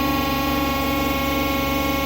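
TEP70 diesel locomotive's V16 diesel engine running steadily, a loud even drone of many steady tones with no change in speed.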